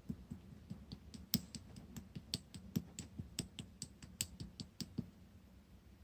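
Clear slime being pressed and pulled by hand, giving a quick irregular run of small sharp pops and clicks, several a second, that stop about five seconds in.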